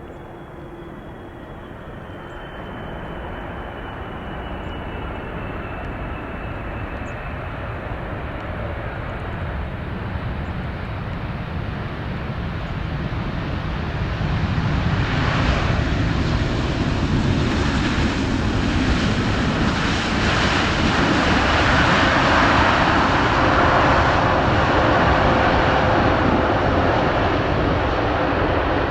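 Jet noise of a Boeing 777-300ER's twin GE90-115B turbofans on landing approach, growing louder for about fifteen seconds as the airliner nears and then holding loud and steady. A faint high whine falls in pitch in the first few seconds.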